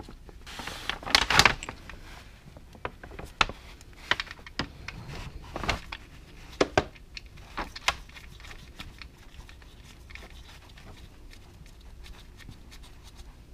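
Light metal clicks and short scrapes as a gloved hand threads a Honda Gold Wing's oil drain plugs back in by hand. The loudest cluster comes about a second in, and the clicks thin out after about eight seconds.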